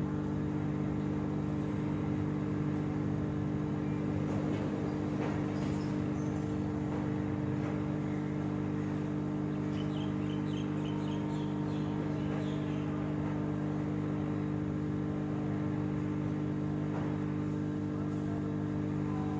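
Hot air rework gun's blower running with a steady hum while its nozzle heats the edge of a phone's screen to loosen the display adhesive.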